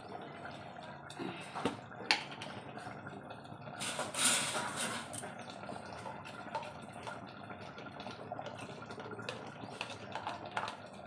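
Chicken curry bubbling in a clay handi pot on a gas burner, with small pops throughout and a brief louder hiss about four seconds in.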